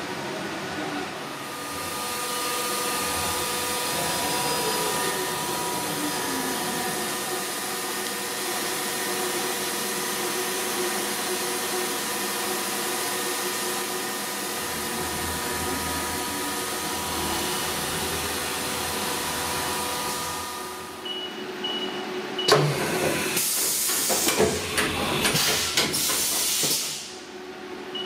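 Haas VF-2SS vertical machining centre running: a steady hiss with faint steady whine tones, and a tone that falls in pitch a few seconds in. Near the end come a run of sharp clicks and clunks with a bright hiss of air as the side-mount tool changer works.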